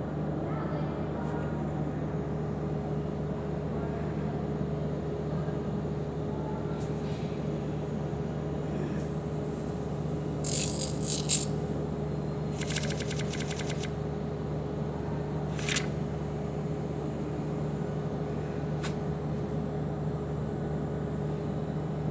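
Steady machine hum with a low drone and a higher steady tone over it. A few sharp clicks and a short rapid rattle come about ten to fourteen seconds in, and one more click follows a couple of seconds later.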